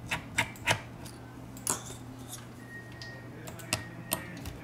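Small, sharp metal clicks and ticks of a precision screwdriver working the tiny screws on a phone's internal metal bracket, a few quick ones in the first second, one alone in the middle and several more near the end, over a steady low hum.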